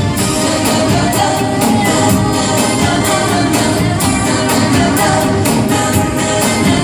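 Music with a singing voice and a steady beat: an old song playing.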